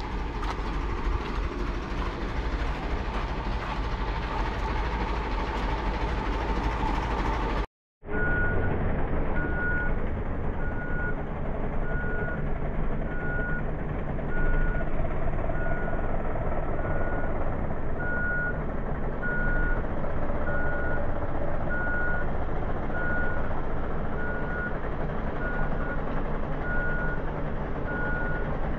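Truck engine running; after a short break about eight seconds in, a reversing alarm beeps evenly, about once a second, over the engine.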